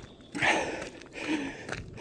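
Heavy, hard breathing of a runner climbing uphill, one loud breath about every second, with footstep clicks between the breaths.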